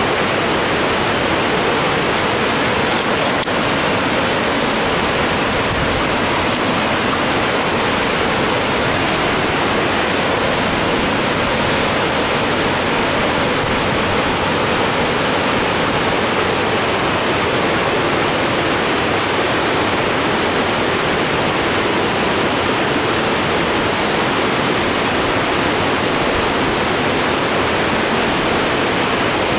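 Steady rush of a rain-swollen creek, its fast, turbulent current churning through shallow rapids.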